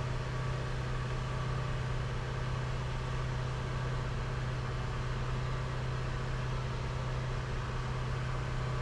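Hunter Road Force Elite wheel balancer running its shaft at steady speed during a calibration spin: a steady low motor hum.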